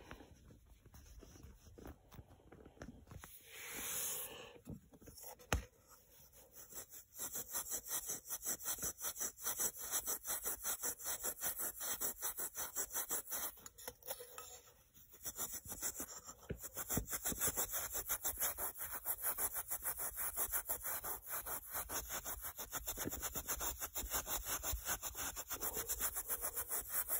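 Fine #0000 steel wool scrubbed back and forth over the rust-pitted chrome-plated metal base of a car mirror, polishing off surface rust: a fast, even rasping stroke rhythm. It starts about seven seconds in after some quieter handling, breaks off briefly about halfway, then goes on.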